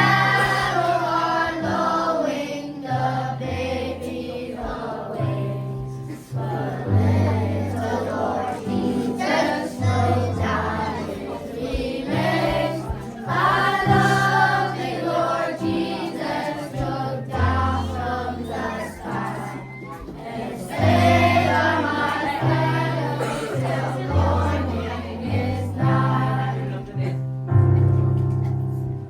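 A choir singing with instrumental accompaniment, the voices moving through a melody over a steady, stepping bass line.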